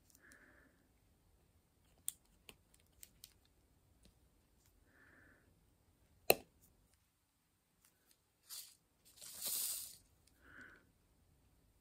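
Faint small clicks and taps of a diamond-painting drill pen picking up resin drills from a plastic tray and pressing them onto a coaster, with one sharp click about six seconds in and a short scraping rustle near the end.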